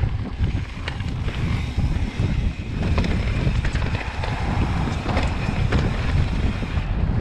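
Wind buffeting the camera microphone of a mountain biker riding down a dirt trail, a heavy, gusting rumble with scattered clicks and rattles from the bike over rough ground.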